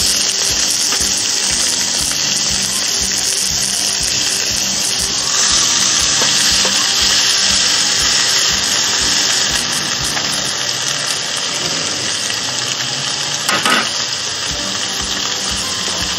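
Beef steak sizzling on a contact grill, the hiss growing louder about five seconds in, over background music. A brief knock comes near the end.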